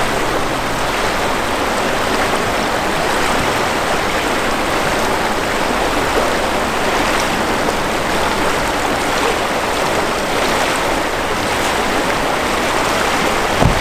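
Shallow river rushing over riffles, a steady flowing-water hiss with no change. A brief knock comes just before the end.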